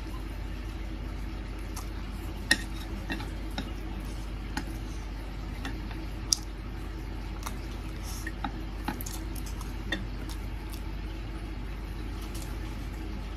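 Eating noodles with chopsticks: the chopsticks click against the bowl now and then, two louder strikes about two and a half and six seconds in, between slurping and chewing noises, over a steady low hum.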